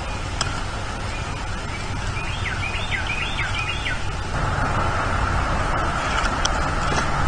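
Steady wind noise on an outdoor microphone, growing a little louder about halfway through, with a short run of about five quick rising-and-falling chirps from a bird around the middle.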